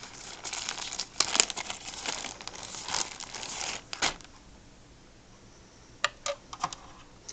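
Crinkling and rustling of wrapping as hands rummage for an empty bobbin, stopping about four seconds in; a few sharp clicks follow near the end.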